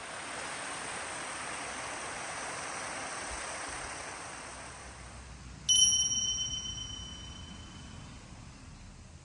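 Steady rush of a small waterfall that fades out about five seconds in, then a single bright bell ding that rings out over about three seconds.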